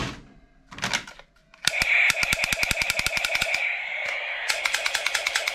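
Toy gun's rapid-fire sound effect: a fast rattle of about ten clicks a second over a steady high hum, starting a couple of seconds in, breaking off briefly and starting again.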